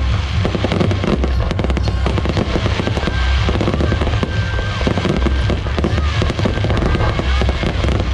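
Aerial fireworks display: a rapid, unbroken barrage of bangs and crackles.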